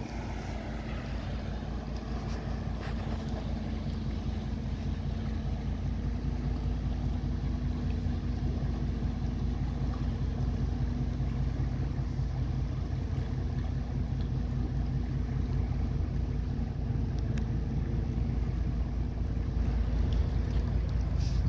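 Large Great Lakes freighter passing close by: the steady low rumble and hum of its diesel engines and propeller, slowly growing louder, with some wind on the microphone.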